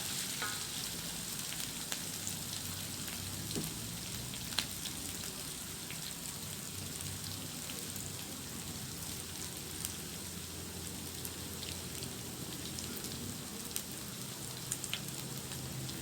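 Hot oil sizzling steadily as sliced shallots fry with whole spices (cinnamon bark, fenugreek, star anise) until crisp, with scattered small pops and crackles.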